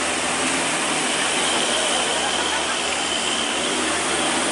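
Steady hiss of heavy rain pouring down on the road, with a truck engine running low underneath.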